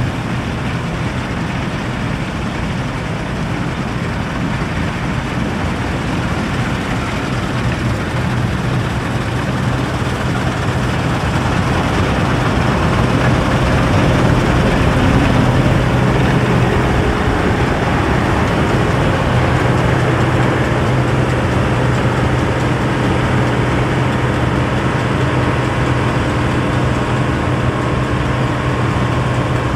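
Deutz-Fahr Top Liner combine harvester running while harvesting oilseed rape: a steady low engine hum under the dense rushing noise of the cutting and threshing machinery. It grows louder toward the middle and then holds steady.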